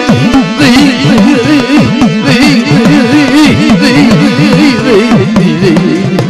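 Indian folk music: a fast hand-drum pattern of pitch-bending strokes under melody instruments.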